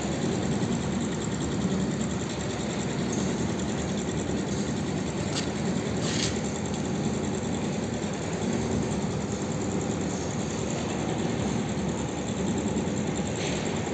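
A motor-driven machine running steadily, with two brief hisses about five and six seconds in.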